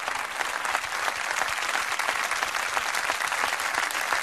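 Studio audience applauding: many hands clapping together, a steady, even patter.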